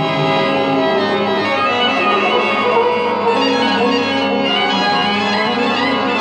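Instrumental music from a saaz matam devotional song: a sustained, steady melody with no singing.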